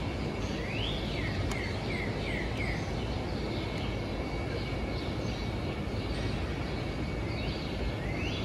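Steady outdoor urban background noise with a songbird singing: a rising note followed by a quick run of short falling chirps, about a second in and again near the end, over a thin steady high tone.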